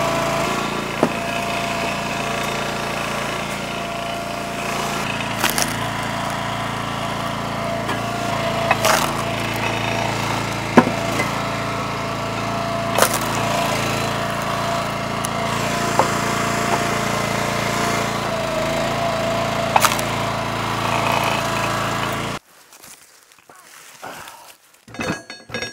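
Split-Fire 3490 two-way log splitter's gasoline engine running steadily with a thin hydraulic whine, broken every few seconds by sharp cracks and knocks of wood splitting and being handled. The engine sound cuts off suddenly near the end, leaving a few quiet knocks.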